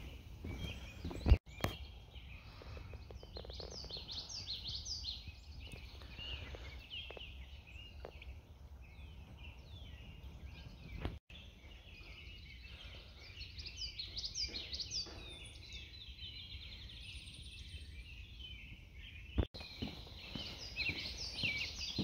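Several songbirds singing and chirping at once in woodland, many short high calls overlapping, over a low rumble. A sharp click about a second in, and the sound drops out briefly three times.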